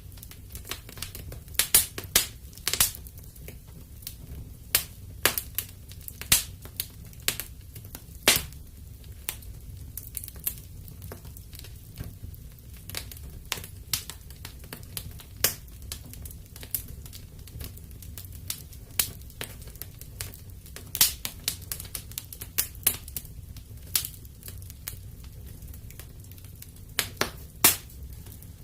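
Wood fire burning in a fireplace, crackling and popping with sharp irregular snaps over a low steady rumble of the flames.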